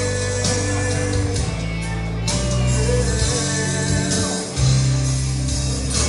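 A song with a singing voice, playing steadily.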